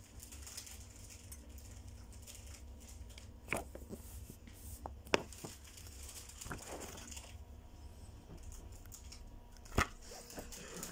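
Paper timetable leaflets being handled and shuffled, rustling, with a few sharp taps about three and a half, five and ten seconds in.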